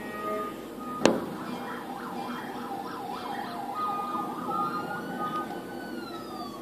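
A siren: its pitch wavers quickly up and down, then holds a steady tone and slides slowly downward near the end, over a steady low hum. A sharp click about a second in.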